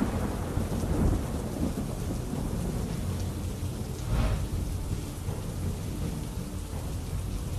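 Heavy rain with low thunder rumbling throughout, swelling into a louder roll about four seconds in.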